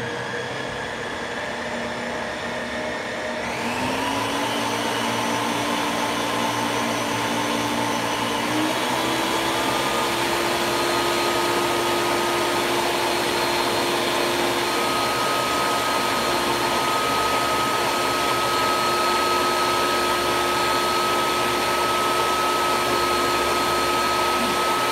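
Countertop blender on its puree setting, blending canned tomatoes with onion, garlic and basil into a sauce: a steady motor whine that steps up in pitch about three and a half seconds in and again near nine seconds, then holds steady.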